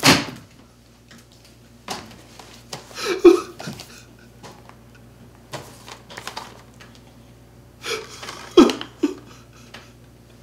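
A man's sobbing: short whimpers and gasps with quiet pauses between them, the loudest a little after three seconds in and again near the end.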